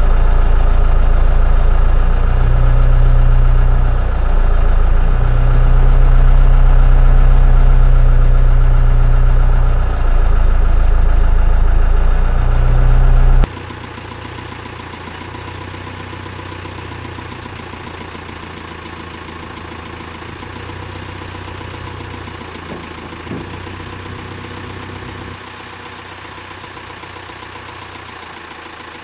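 Branson 7845C tractor's diesel engine running while the front loader lifts a heavy hot tub on chains. The engine is loud for the first half, dipping briefly twice, then is suddenly quieter and steadier for the rest.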